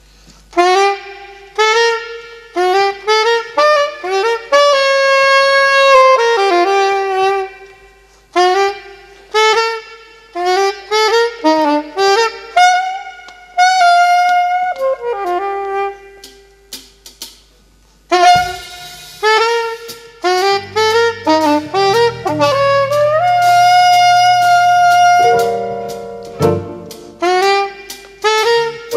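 Saxophone played by a five-year-old child: a solo melody of held and moving notes, pausing briefly about two-thirds through, then resuming with a low bass accompaniment joining in.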